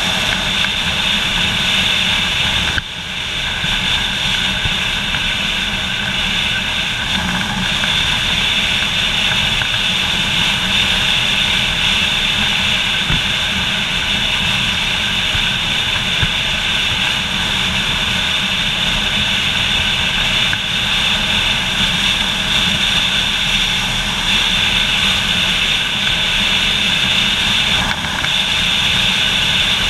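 Motorcycle riding along at road speed: the engine runs steadily under loud wind rush on the microphone, with a brief dip in level about three seconds in.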